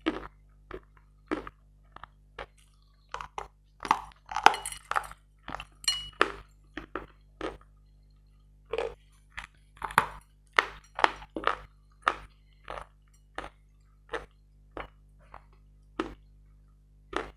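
Dry, dense, grainy chalk crunched between the teeth: sharp, irregular crunches and clicks, a couple per second, coming thickest around four to six seconds and ten to twelve seconds in.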